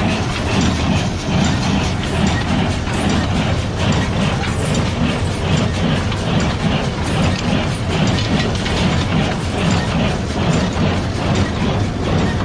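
Farm machinery running steadily with a dense mechanical clatter.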